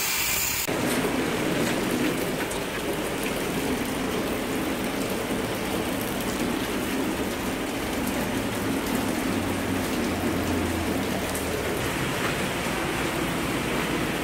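A loud hiss cuts off suddenly under a second in, leaving a steady rushing noise of heavy rain with a faint low hum underneath.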